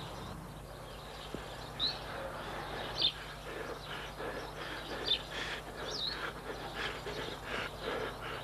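Woodland birds chirping: a few short, high chirps a second or two apart over quiet outdoor background. From about halfway in comes a soft, even patter of running footsteps on a dirt path.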